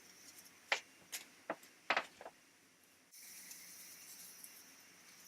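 Faint handling sounds as a lace front wig is pulled on: four short taps and rustles in the first two seconds, then a faint steady hiss from about three seconds in.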